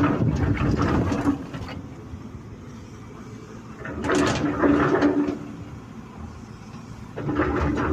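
Excavator at work: engine and hydraulics loading up in three surges, at the start, around four seconds in and near the end. Each surge carries a steady whine along with rougher rattling and scraping.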